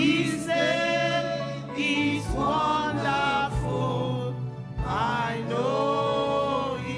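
A woman singing a slow worship song into a microphone in long, gliding phrases over sustained keyboard chords, with a few low thuds in the middle.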